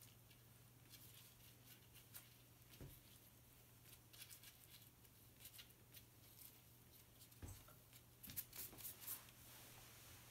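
Near silence: faint rustles and soft ticks of a gloved hand pressing walnuts into wet, sticky potting soil in a bucket, over a low steady hum, with a few soft knocks in the last few seconds.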